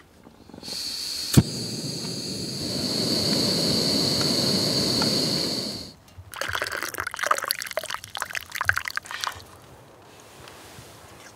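Backpacking canister stove burning with a steady hiss for about five seconds, with one sharp click near its start. After it stops, hot water is poured from the pot, splashing and trickling for about three seconds.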